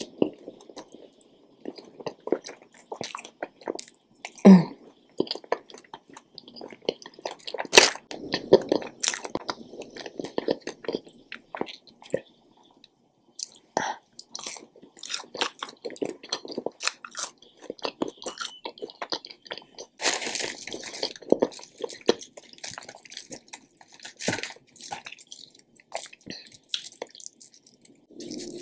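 A person chewing ranch-dipped seasoned french fries, with crunchy bites and wet mouth sounds coming as irregular clicks and crackles. There is one louder, brief low sound about four and a half seconds in.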